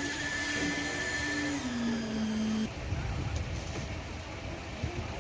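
A machine motor on a concrete site runs with a steady hum that dips in pitch about two seconds in, then cuts out suddenly, leaving a low rumble of site noise.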